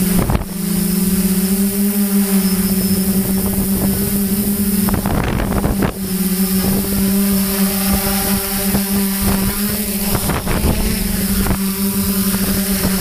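Multirotor drone's electric motors and propellers, heard from its onboard camera, giving a steady droning hum that shifts slightly in pitch as the throttle changes during a slow, low descent. A few brief crackles of wind buffet the microphone.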